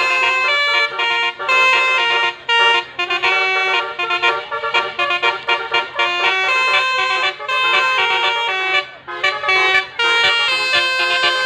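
Bus telolet horns playing melodies: several pitched horn notes sounding together and stepping from note to note, with a couple of brief breaks.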